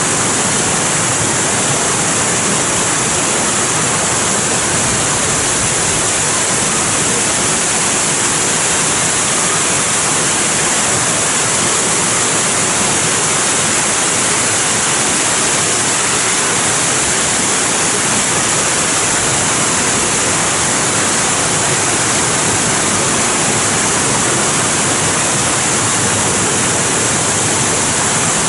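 Fountain-and-waterfall water feature, its water pouring and splashing in a steady, unbroken rush that is very loud.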